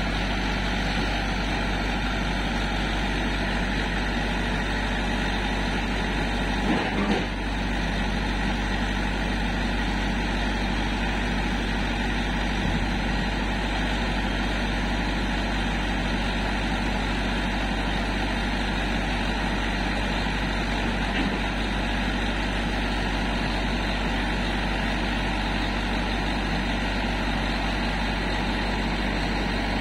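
Heavy diesel engine idling steadily, with one short knock about seven seconds in.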